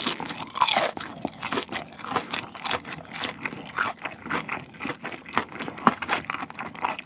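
Close-miked chewing of a mouthful of spicy tteokbokki and pasta in cream sauce: a steady run of small, quick mouth clicks and smacks.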